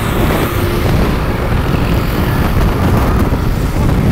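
Wind rushing over the microphone and the road and engine noise of a moving motorbike, a steady loud rumble.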